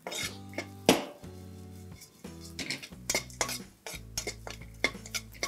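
Metal spatula stirring and scraping a pan of roasting coriander seeds and lentils in a little oil, with repeated irregular clinks and scrapes of metal against the pan.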